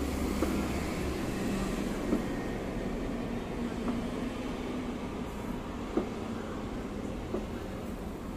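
Distant fireworks going off in scattered sharp bangs, about five in eight seconds, over a steady low rumble of city traffic.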